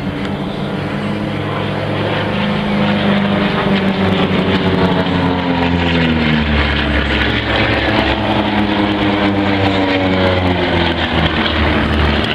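Propeller airplane engine running in flight, growing louder over the first couple of seconds, its pitch gliding down about halfway through as the plane passes.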